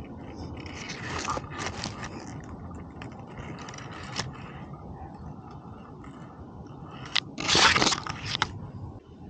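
A cat sniffing and chewing at dry grass right at the microphone, with close crunching and scraping of the stalks in short bouts. The loudest scrape and rustle comes near the end, as its head pushes in closest.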